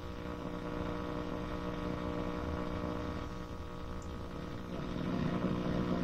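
A circa-1946 Emerson tube radio's loudspeaker giving a steady hum with some hiss while being tuned with no antenna connected, so no station is coming in. The sound grows a little louder near the end.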